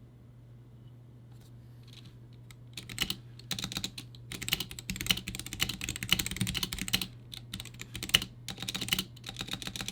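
Typing on a GamaKay (Womier) K87 tenkeyless mechanical keyboard fitted with stock Gateron Yellow linear switches: rapid runs of key clacks starting about three seconds in, with brief pauses.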